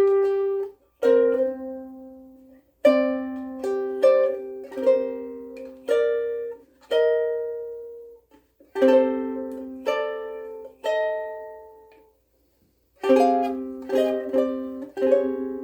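Soprano ukulele playing a short riff on its own: plucked notes and chords that ring and fade, in phrases broken by brief pauses.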